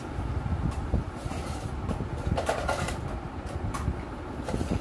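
Scrapes and knocks as a small electric motor and its metal terminal-box cover are handled and shifted on a concrete floor, over a steady low rumble. There are half a dozen short handling noises, the longest a scrape near the middle.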